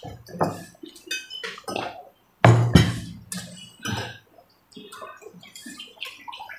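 Spoons and forks clinking and scraping against ceramic plates during a meal, with scattered sharp knocks; the loudest knock comes about two and a half seconds in.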